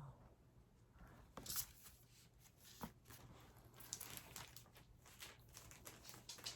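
Faint, irregular rustling and light taps of paper photo cards and packaging being handled.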